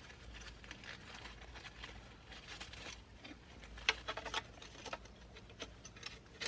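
Plastic radio bracket being worked into a car dash opening: faint rustling and scraping of plastic and wiring, with a few short clicks about four seconds in.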